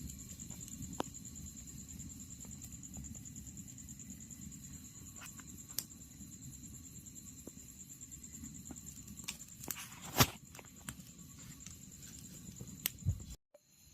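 Outdoor rural ambience: a steady, high, finely pulsing insect trill over a low rumble, with scattered light clicks and one louder knock about ten seconds in.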